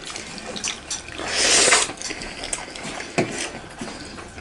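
Wet eating sounds of fish curry eaten by hand: lip smacks and sucking as fish is picked off the bones in the mouth, with one louder slurp about a second and a half in.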